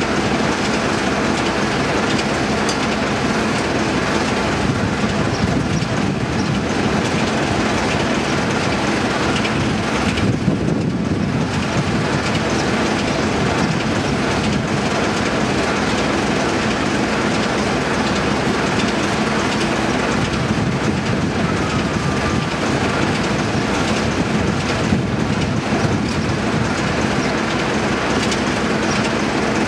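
Heritage British Rail diesel locomotive standing with its engine idling: a steady running hum with an even rumble over it.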